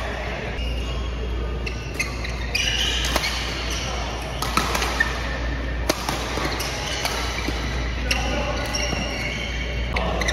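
Badminton rackets hitting a shuttlecock during a doubles rally: a series of sharp hits at irregular intervals, over background voices.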